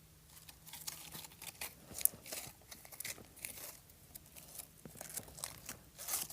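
Fluffy slime being squeezed and stretched by hand: a run of irregular small crackles and pops, with one sharper snap about two seconds in.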